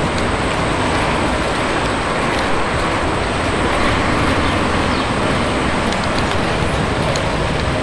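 Steady noise of a moving vehicle, an even rumble and rush with no clear events.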